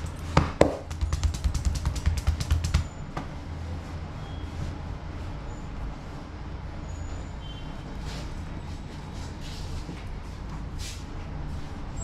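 A quick run of sharp hand slaps on a man's back, about eight a second for roughly two and a half seconds near the start: percussive massage strokes through a towel. After that there is only a steady low background hum.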